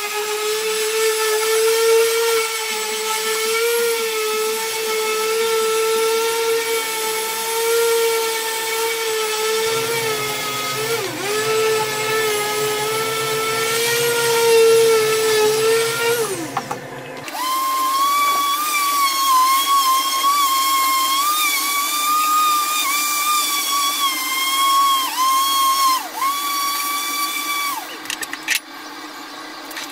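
Makita random orbital sander running on wood with a steady whine. About halfway through, its pitch jumps markedly higher and holds, wavering slightly, until the sander stops near the end.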